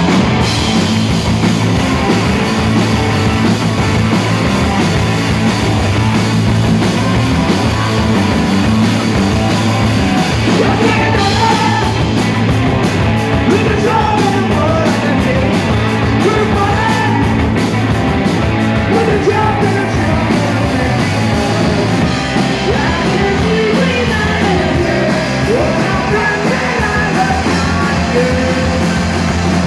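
Rock band playing live, with electric guitars, bass and drums and a woman singing into the microphone.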